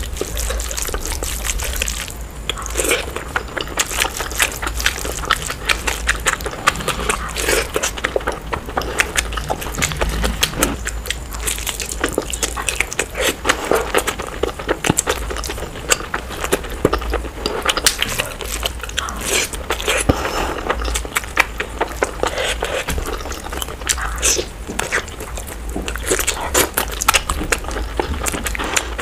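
Close-miked wet eating sounds: fingers squishing rice into curry gravy and a mouth chewing and smacking, a quick, uneven run of small clicks and squelches over a steady low hum.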